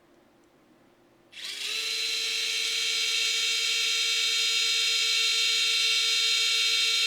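A small cordless electric screwdriver, a Vessel Premium, switched on about a second in and running free at top speed, with a steady high motor and gear whine.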